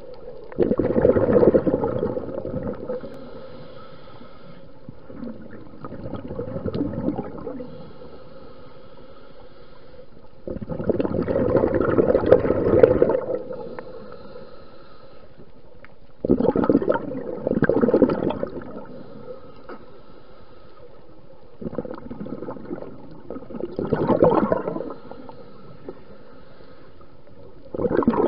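Scuba regulator exhaust bubbles heard underwater close to the camera: a loud bubbling rush about every five to six seconds, each lasting around two seconds, with quieter steady underwater noise between breaths.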